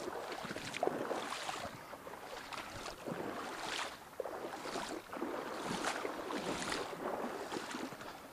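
River water swishing and splashing around a wader's legs in shallow current, in irregular swishes about once a second.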